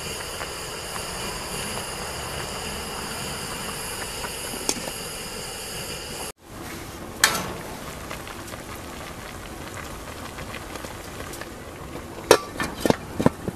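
A pot of spicy fish stew boiling on a camp burner: a steady hissing rush with a faint high whine. After a sudden cut, the lidded pot boils on with the same rush, a single clink a little past halfway, and a quick run of clinks near the end.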